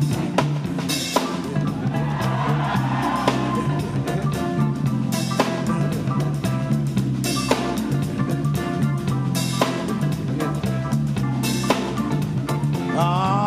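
Live funk band playing an instrumental groove: a drum kit with snare backbeat and regular cymbal crashes about every two seconds over a steady electric bass line, with guitar.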